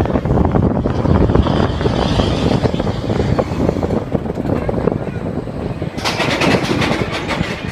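Seven Dwarfs Mine Train roller coaster rolling along its track and onto the chain lift hill: a steady rumble and rattle. About six seconds in, a rapid run of sharp ratcheting clicks from the lift lasts about a second.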